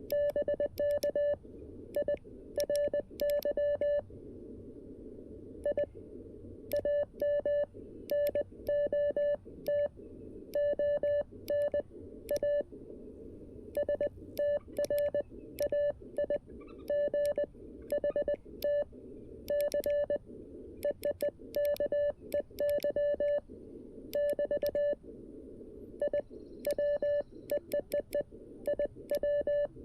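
Morse code from a CW transceiver: a steady tone of about 600 Hz keyed on and off in dots and dashes, with a click at each key-down, over a steady low hiss of band noise.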